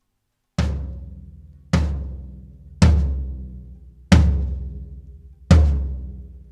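Floor tom of a drum kit struck slowly, five single hits about a second and a quarter apart, each one booming and ringing out before the next, for a sound-check level.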